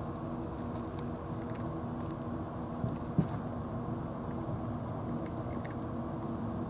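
A motor running steadily in the background, a low hum with a few steady tones, with two short knocks about three seconds in.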